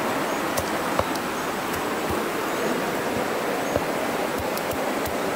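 Steady rush of a fast-flowing mountain stream, with a sharp knock about a second in and a few soft thuds from a stone pounding lemongrass stalks on a flat rock.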